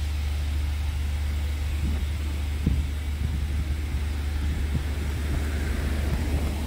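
A steady low rumble with a few faint knocks.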